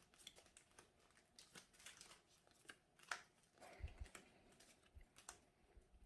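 Faint, irregular clicks and ticks of trading cards being handled and flipped through one by one, with a soft thump a little under four seconds in.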